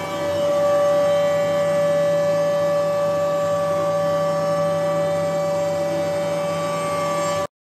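Woodshop machinery running steadily with a high-pitched whine of several steady tones over a low hum; it cuts off abruptly near the end.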